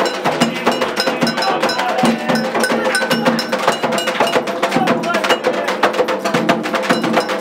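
Candomblé ritual percussion for Oyá: an agogô iron bell struck in a fast, steady pattern over atabaque drums.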